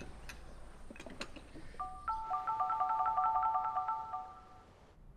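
Light background score: a few soft notes fade, then a bright chiming figure of quickly repeated high notes plays from about two seconds in and fades out near the end.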